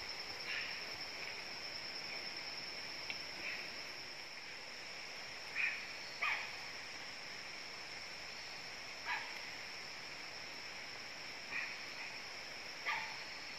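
Tropical forest ambience: a steady high-pitched insect drone, with about seven short, sharp animal calls spaced a couple of seconds apart, the loudest two close together near the middle.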